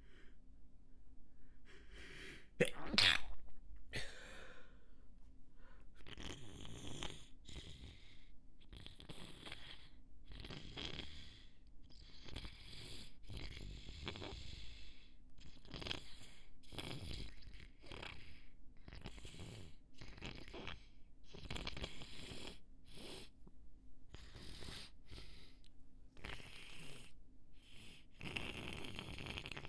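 A person sneezes once, sharply, about three seconds in, then blows her nose again and again into a tissue: a long run of short, wet nasal blasts about one a second.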